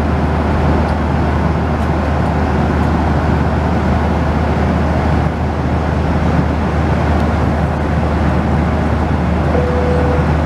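Steady cabin roar of a Boeing 737-800 at cruise: the CFM56-7B engines and the airflow over the fuselage make an even, deep rushing noise. A short single tone sounds near the end.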